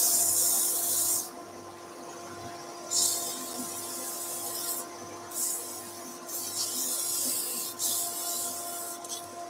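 Abrasive paper sanding a turned wooden tea light holder as it spins on a wood lathe, in stretches of hiss each a second or two long as the paper is pressed on and eased off. A steady machine hum runs underneath.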